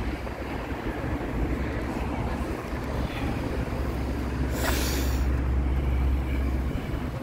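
Outdoor street ambience: a steady low rumble of wind on the microphone and passing traffic, with a brief hissing burst about four and a half seconds in.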